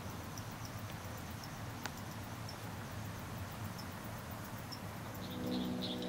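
Insects chirping faintly and sparsely, with one brief click about two seconds in. Near the end a louder, rapid pulsing call comes in over a low drone.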